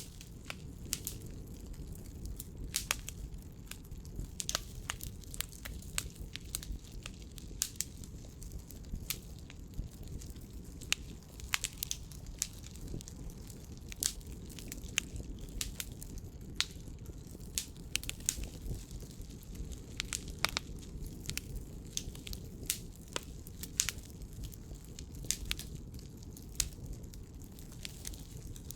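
Burning firewood crackling, with frequent irregular sharp pops over a steady low rumble.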